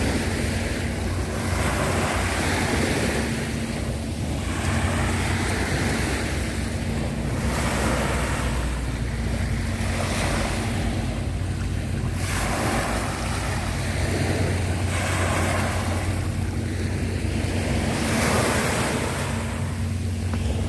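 Small sea waves washing onto the shore, the wash swelling and falling back about every two seconds, over a steady low hum.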